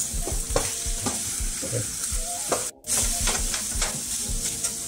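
Eggs with chopped ham and hot dogs sizzling in a skillet while a wooden spatula stirs and scrapes them, knocking against the pan again and again. The sound briefly cuts out about three seconds in.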